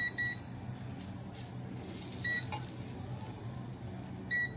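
Short, high electronic beeps: two quick ones at the start, one a little past two seconds in, and one near the end, over a steady low hum.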